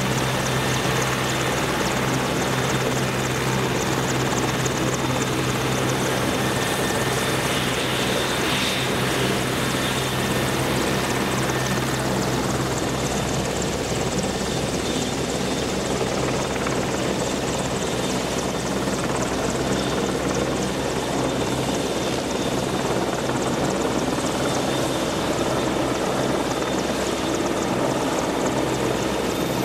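AgustaWestland AW101 Merlin helicopter running steadily: a low, even rotor and engine drone with a thin high turbine whine on top.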